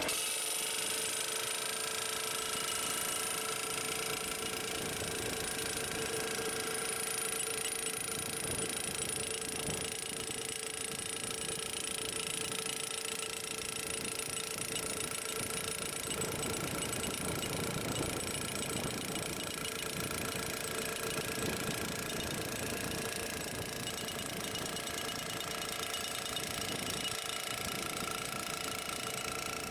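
Rhino GDP-30 gas-powered post driver running at full throttle, its hammer rapidly pounding a steel T-post into the ground. The engine note comes in suddenly at the start and holds steady.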